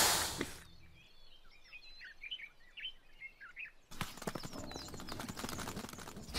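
Small birds chirping in short rising and falling calls over quiet open-country ambience, after a brief rush of noise at the very start. From about four seconds in, a quick run of light scuffs and clicks takes over.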